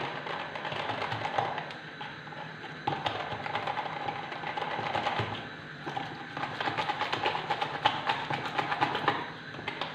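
Wire balloon whisk beating eggs, sugar and cornstarch in a plastic measuring jug: a fast, dense rattle of the wires clicking against the jug's sides, with short pauses about two, five and a half and nine seconds in.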